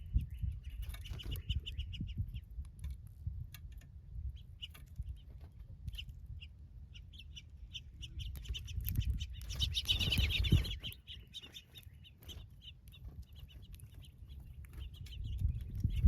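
Backyard birds chirping in runs of short calls, busiest and loudest about ten seconds in, over a low rumble.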